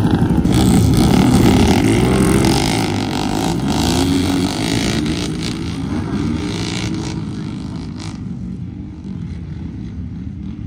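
Several racing ride-on lawn mower engines revving hard as the mowers launch off the start and pull away. The engines fade over the last few seconds.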